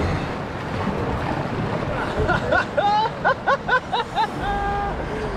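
Rushing whitewater of a river rapid. About two seconds in, a quick run of short high-pitched notes that bend upward, then one held high note near the end.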